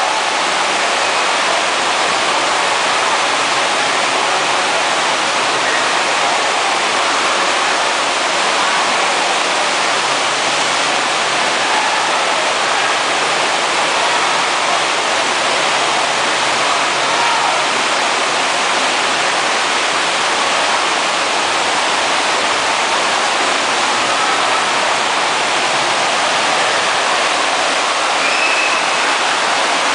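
Steady, loud rushing of the thin sheet of water pumped up the padded slope of an artificial surf-wave ride, unbroken throughout.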